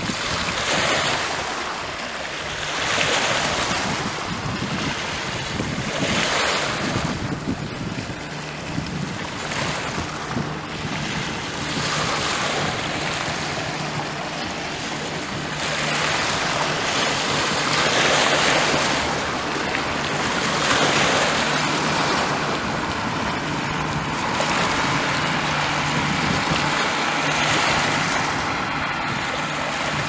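Small Baltic Sea waves breaking and washing over a pebble beach, a wash swelling every few seconds. A faint low steady hum runs underneath from about a quarter of the way in.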